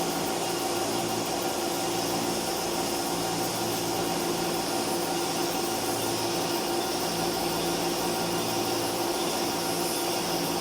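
Workshop machinery running steadily: a constant whirring hiss with a steady hum over it.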